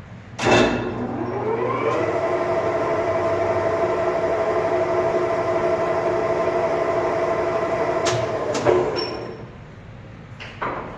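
Kuraki hollow-spindle engine lathe starting up: a clunk as the spindle is engaged, then gear whine rising as it runs up to speed over about a second and a half and running steadily. After about eight seconds two clunks come as it is stopped and the whine dies away, with one more click near the end.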